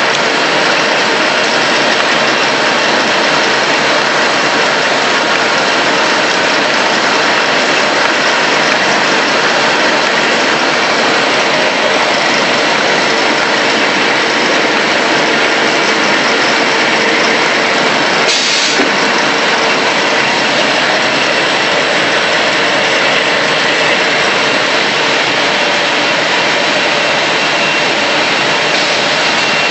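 Automatic A4 paper roll-to-sheet cutting machine running: a loud, steady mechanical noise. There is one brief louder rush of noise about two-thirds of the way through.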